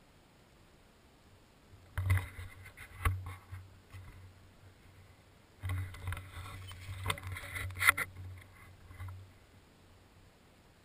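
Crunching and rustling of dry fallen leaves in two bursts, the first about two seconds in and the second from about halfway to near the end, with a few sharp knocks of the gun-mounted camera being handled.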